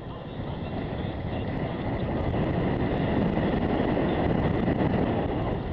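Mountain bike running fast downhill on a dry dirt singletrack: tyres rolling over dirt and loose stones and the bike rattling, growing louder over the first few seconds as speed builds.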